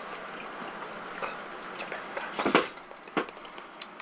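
Several short clicks and smacks over a steady hiss, the loudest a little past halfway, a few more following near the end.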